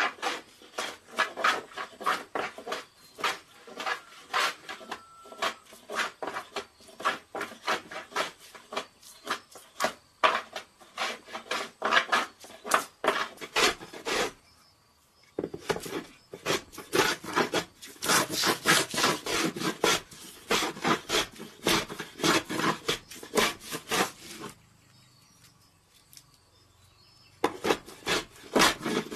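Hand plane shaving a wooden board in quick repeated strokes, about two or three a second, each a dry rasping scrape of the blade cutting shavings off the wood. The strokes pause briefly about halfway and for a few seconds near the end.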